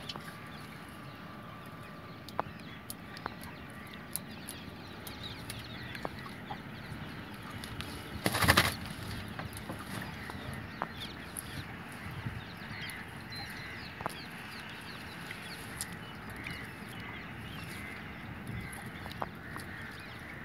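Nylon gill net being handled by hand in a wooden canoe while a caught fish is freed from the mesh: faint rustling and small scattered clicks over a steady low background, with one short, much louder burst of flapping and knocking about eight seconds in.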